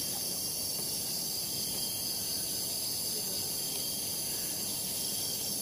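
Steady, high-pitched insect chorus that carries on unbroken.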